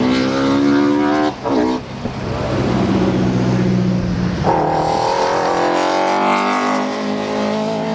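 BMW E30 M3 DTM race car's S14 four-cylinder engine running hard at high revs. Its note breaks and drops briefly about a second and a half in, jumps sharply higher about halfway through, then holds and climbs slowly.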